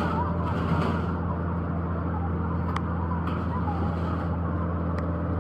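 An engine running steadily with a low, even hum, with a few sharp light clicks over it.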